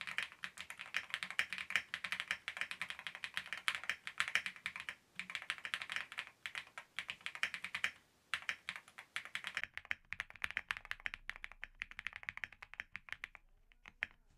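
Fast, continuous typing on a spring-mounted Owlab Link65 custom mechanical keyboard with an FR4 plate and lubed Graphite Gold switches: dense key clacks with brief pauses. The sound changes from the camera microphone to a Blue Yeti microphone about ten seconds in. The typing trails off just before the end.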